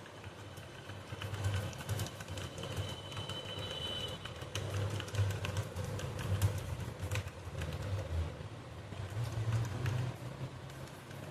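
Typing on a computer keyboard, scattered key clicks throughout, over a low pulsing rumble. A brief high tone sounds from about two to four seconds in.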